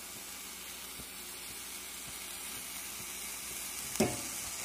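Lion's mane mushroom pieces sizzling steadily in a dry pan with no oil, giving up their moisture as they brown. A brief knock comes about four seconds in.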